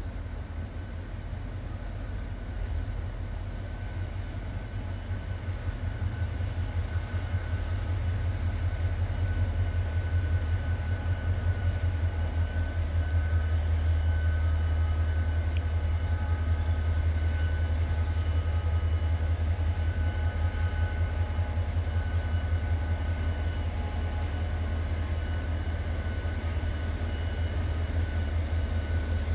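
Diesel locomotive hauling a long train of cars on approach: a deep engine rumble that grows louder over the first half and then holds steady.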